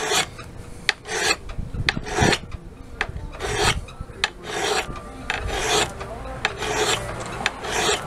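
Hand file draw-filing the steel edge of a camp axe clamped flat: long, even rasping strokes, the stronger ones about once a second with lighter scrapes between, putting a new bevel on the bit.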